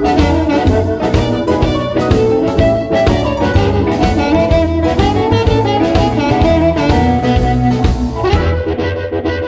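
Electric blues band playing: a sustained wind-instrument lead line, most like amplified blues harmonica, over electric guitar, bass and a steady drum beat.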